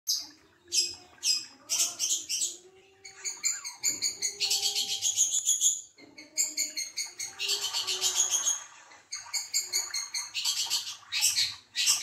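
Caged long-tailed shrike (cendet) singing a fast, varied song of high, quickly repeated chattering notes, in several bursts separated by short breaks.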